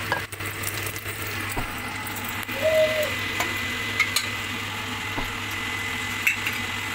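Beaten egg with sliced onions frying in hot oil in an iron kadai: a steady sizzling hiss with scattered small crackles. A brief steady tone sounds a little under three seconds in.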